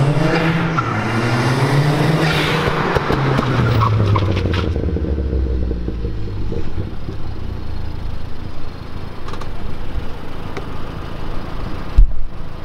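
Stage 3 Ford Fiesta ST's turbocharged 1.6 EcoBoost four-cylinder, with hybrid turbo and turbo-back exhaust, accelerating hard, its revs rising, dipping and rising again. The pitch then falls over about two seconds as the car slows for its braking stop, and it settles to a low idle. A single sharp knock comes near the end.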